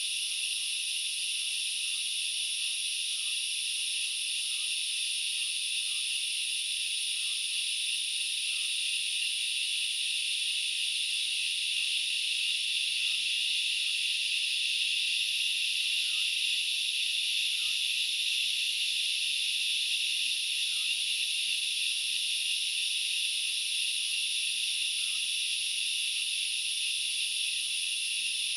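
Dense insect chorus: a steady, unbroken high-pitched shrill with no pauses, with faint short chirps scattered through it.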